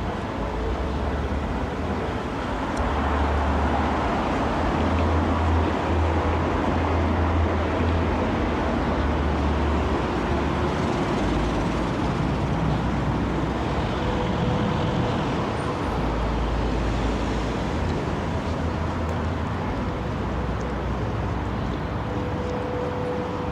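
Steady outdoor road traffic noise with a low rumble, and a faint held tone twice in the second half.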